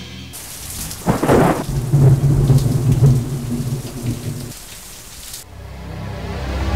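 Recorded thunderstorm: steady rain with heavy rolls of thunder, the loudest about a second in and again around two to three seconds in. The rain cuts off suddenly about five and a half seconds in, and music takes over.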